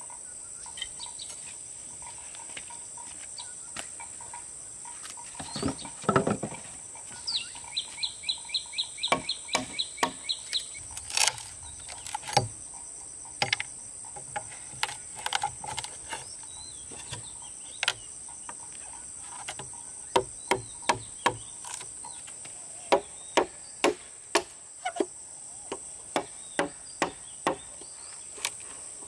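Insects droning steadily at a high pitch, with a bird calling in a quick run of repeated notes about eight seconds in. Irregular sharp knocks and taps come through throughout, in quicker runs in the second half.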